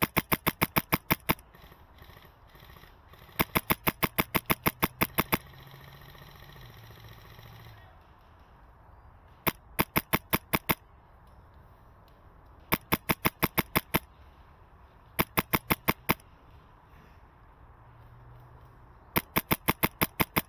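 Wolverine MTW HPA airsoft rifle with a mock suppressor firing six quick strings of sharp shots, about eight shots a second, with a few seconds' pause between strings.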